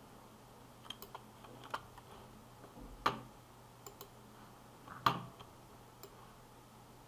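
Computer keyboard and mouse clicks: about eight short, irregular clicks, the two loudest about three and five seconds in.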